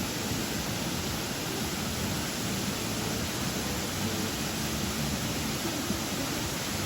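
Steady rushing of a waterfall, an even wash of falling water with no break.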